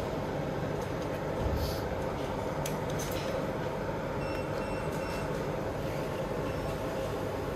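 Hot-air rework station blowing steadily while parts are desoldered from a circuit board, with a few faint clicks.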